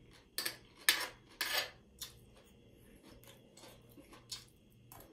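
Metal fork and spoon clinking and scraping on a ceramic dinner plate while eating: several sharp clinks and a short scrape in the first two seconds, then a few softer taps.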